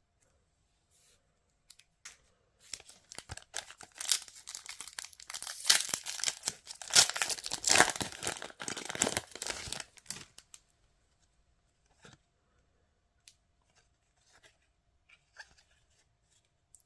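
Foil trading-card booster pack being torn open and crinkled for several seconds, followed by a few light clicks and rustles as the cards are handled.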